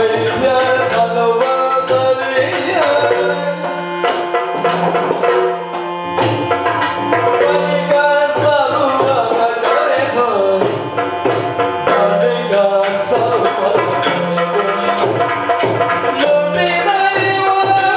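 Yakshagana accompaniment music: drums playing a quick rhythm under held and gliding melodic lines.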